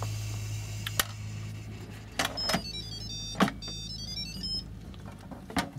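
Instant Pot pressure cooker lid being turned and lifted off after the steam release: several sharp clicks and clunks of the lid and pot. A short electronic tune of beeps plays in the middle, over a steady low hum that stops near the end.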